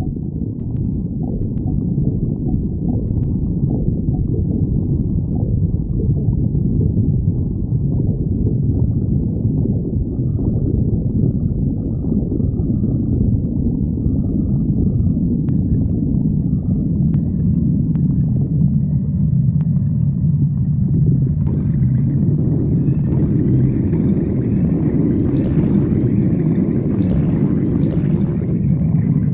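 A person's stomach growling and gurgling in a continuous low rumble. In the second half it settles into a longer, steadier low growl, with higher gurgles added near the end.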